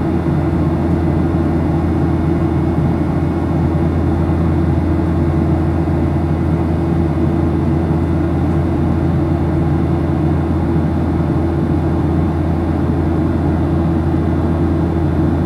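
Steady jet engine and airflow noise heard inside the cabin of a Boeing 737-800 airliner, a loud even rush with a constant low hum from its CFM56-7B engines.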